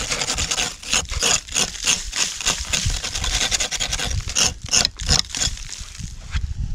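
A metal blade scraping packed snow and ice off a wooden plank in quick repeated strokes, about three a second, thinning out near the end.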